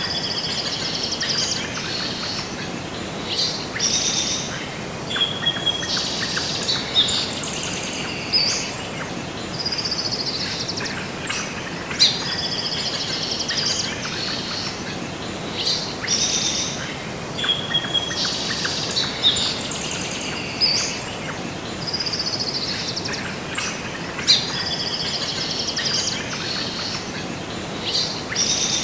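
Several birds chirping and singing over a steady background hiss, the same stretch of song repeating about every 12 seconds, like a looped nature-sound track.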